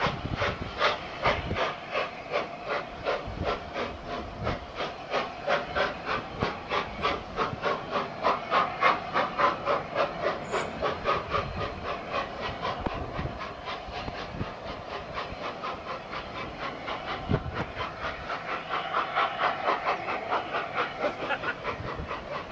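LNER A4 Pacific steam locomotive Union of South Africa passing under power: a fast, even beat of its three-cylinder exhaust, about five chuffs a second. About two-thirds in the beats fade into the steady noise of the train rolling by.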